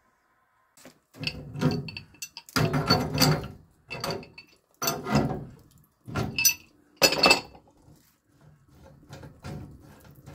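A pipe wrench clanking and scraping against the brass fitting of a hot-water mixing valve as it is set on and tightened: a string of short, sudden metallic clanks and grinds, a few seconds apart.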